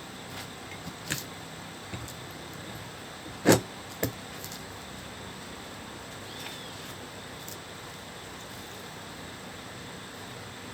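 A few sharp knocks and clicks over a steady hiss: small ones early, the loudest about three and a half seconds in, and a second strong knock half a second after it.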